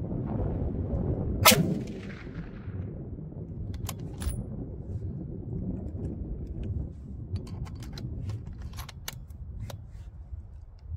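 One shot from a 6.5 PRC bolt-action rifle about a second and a half in, the loudest sound, trailing off in a rolling echo. Sharp metallic clicks follow a couple of seconds later and again as a quick cluster near the end, from working the rifle's bolt and handling it.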